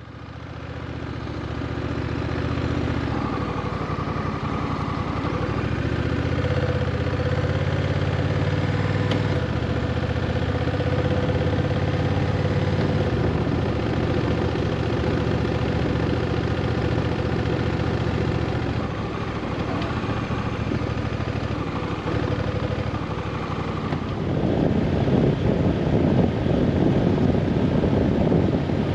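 Honda Rebel 1100's parallel-twin engine running, its note shifting in steps, with a louder rushing noise coming in about three-quarters of the way through.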